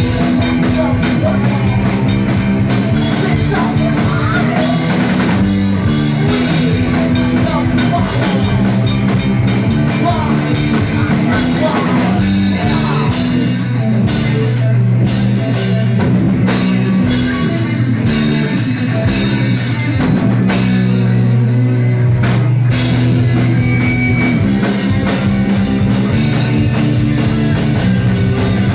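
Loud rock music with a drum kit and guitar over sustained low bass notes.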